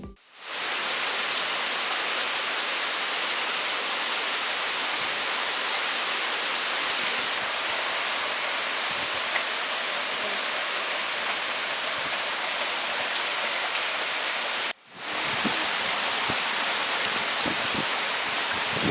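Steady rain falling, an even hiss. It cuts out for a moment about three-quarters of the way through, then resumes.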